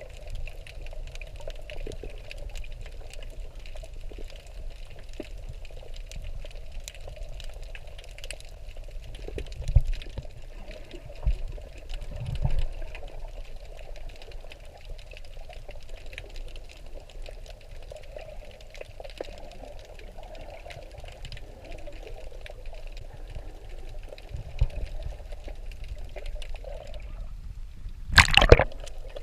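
Water sloshing and bubbling close to the microphone, with scattered low knocks and one loud burst near the end.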